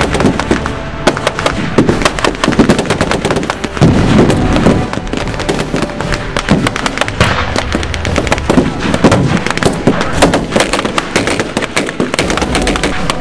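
Dense, rapid gunfire from blank-firing WWII-style rifles and a machine gun, sharp shots cracking one after another and often overlapping.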